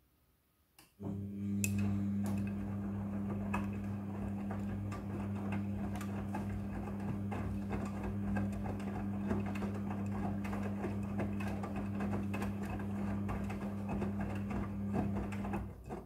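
Midea front-loading washing machine in its wash tumble: the drum motor starts with a steady hum about a second in, turning the drum while the wet clothes tumble and slosh with small clicks and rattles, then stops just before the end. This is one turn of the drum between the pauses of the wash cycle.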